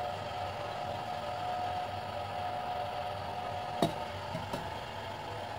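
Steady hiss from the gas burner and simmering saucepan, with a faint steady hum. About four seconds in, a glass pot lid clinks sharply against the saucepan's rim, followed by a lighter knock half a second later.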